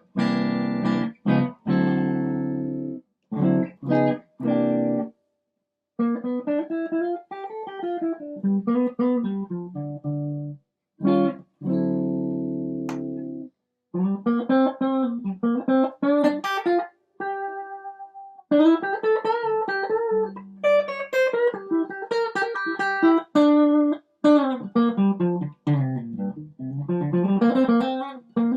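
2018 Duesenberg Paloma electric guitar played through its pickups with light overdrive from an Ibanez Nu-tube pedal. It opens with short strummed chords that are cut off sharply, then moves to single-note melodic runs that climb and fall, with brief pauses between phrases.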